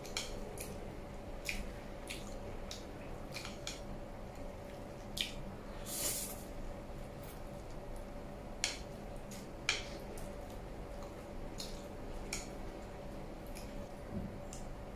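Close-up wet chewing and lip smacks of someone eating spicy instant noodles and steamed momos, with a short noodle slurp about six seconds in.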